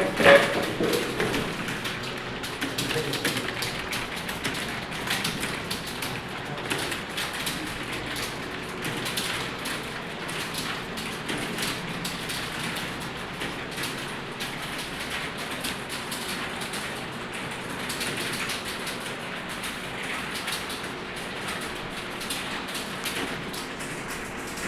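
Rapid typing on keyboards: a dense, steady clatter of many overlapping keystrokes.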